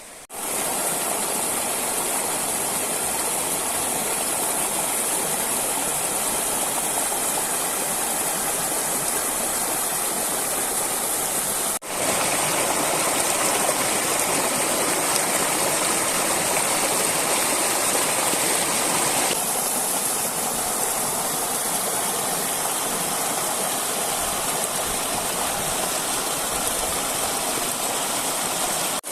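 River water rushing steadily, a loud even wash of flowing water that shifts abruptly in level and tone twice, about twelve and nineteen seconds in.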